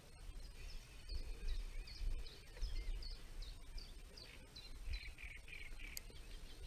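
A songbird calling a run of short, high chirps, about two or three a second, with a few lower notes near the end, over a low rumble.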